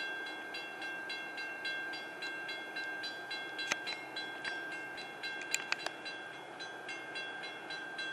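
Railroad crossing warning bell ringing in a quick, even rhythm, about three rings a second, as a commuter train approaches; a few sharp clicks break in.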